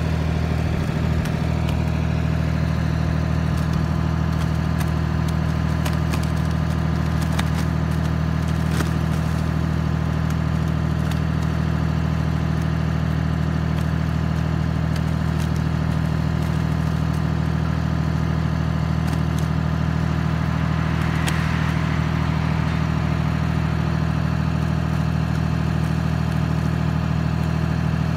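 New Holland 480 tractor engine running steadily at raised throttle, driving the hydraulics that tip a loaded manure trailer.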